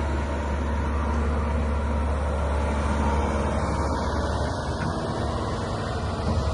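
Kobelco SK210LC-10 hydraulic excavator's diesel engine running steadily with a deep, even hum.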